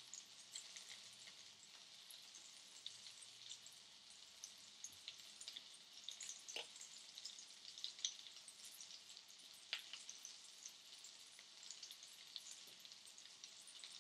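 Faint sizzling and crackling of oil around mince cutlets shallow-frying in a pan, with scattered small pops and two sharper ones, about six and a half and ten seconds in.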